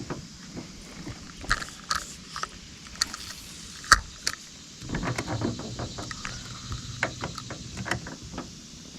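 Spinning fishing reel and tackle being handled: scattered sharp clicks, the loudest about four seconds in, then from about five seconds a stretch of rapid ratcheting clicks as the reel is cranked in.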